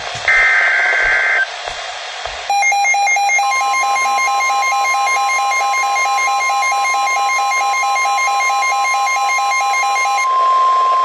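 Emergency Alert System broadcast on NOAA Weather Radio: a burst of the buzzy two-tone SAME data header, then about two and a half seconds in a rapid pulsing beep alarm starts. About a second later the steady 1050 Hz weather radio warning tone joins it and outlasts the beeping, announcing a severe thunderstorm warning.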